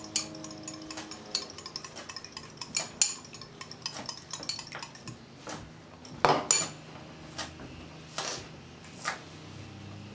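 An egg being whisked with a fork in a bowl: quick clinks of cutlery against the bowl in the first few seconds, then a handful of separate, louder knocks.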